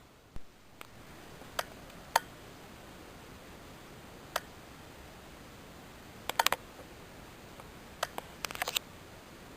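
Sharp clicks of handling on the camera: single clicks at first, then two quick clusters of four or five, over a faint steady hiss.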